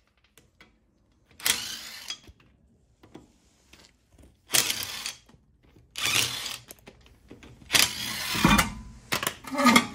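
Ratchet wrench spinning out a car's wheel bolts, in five short bursts with gaps between them.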